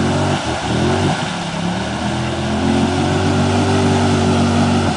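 ATV engine revving hard under load as the quad churns through a deep mud hole, its tyres throwing muddy water. The revs waver and dip in the first second or so, then climb and hold high and steady.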